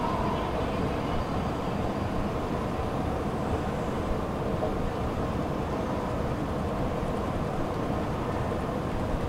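Metro escalator running: a steady mechanical rumble and hum from its moving steps and drive, with no distinct knocks or changes.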